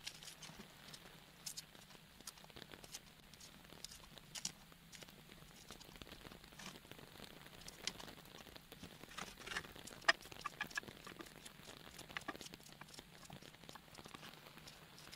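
Faint, sparse clicks and crackles of a red onion being peeled and cut with a small knife, over a faint steady hiss.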